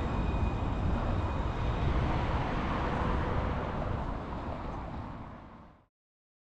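Luas light-rail tram running at a stop: a steady rumble and hum with a faint high whine that stops about two seconds in. The sound fades out near the end.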